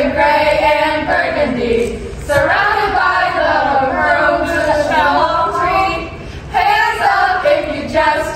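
Small group of women singing a sorority greeting song together without accompaniment, in short phrases with brief pauses between them.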